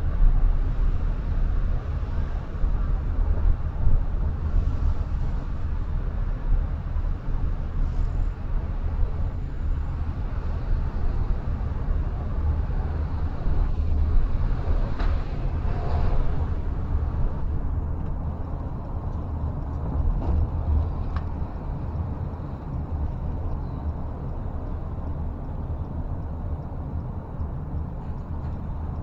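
Steady low rumble of a car driving on a city road, the engine and tyre noise heard from inside the car. About halfway through there is a faint high whistle that rises and falls, along with a brief hiss.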